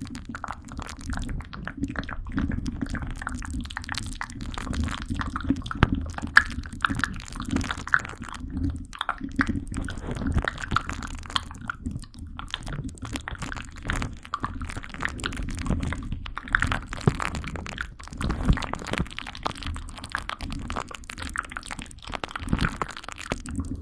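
Close-miked ASMR trigger sounds: a dense, irregular run of small wet clicks and crackles over a low rumble.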